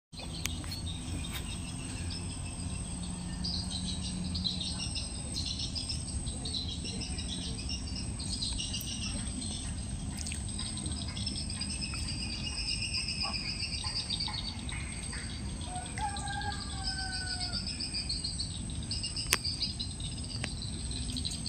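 Birds chirping and insects trilling, over a low steady rumble. About three-quarters of the way in comes a short, lower whistled call, and a sharp click follows soon after.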